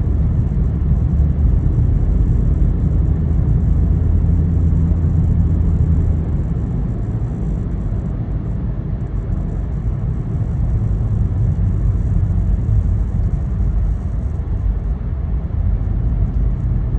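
Car driving, a steady low engine hum over road rumble. The low hum eases about six seconds in.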